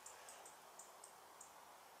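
Near silence, with about half a dozen faint, short high-pitched ticks scattered through it.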